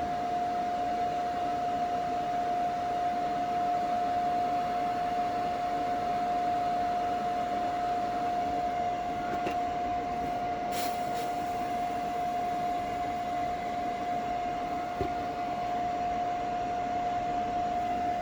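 A 100-volt welder running while welding a steel car frame: a steady hiss with a constant high hum throughout.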